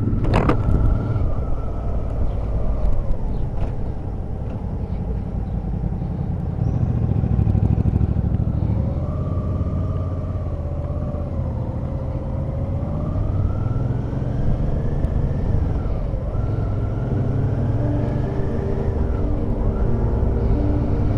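Motorcycle engine running, heard from on board the bike while riding slowly through a town. Its pitch rises over a few seconds and drops sharply twice in the second half as it accelerates and changes gear. There is one sharp click near the start.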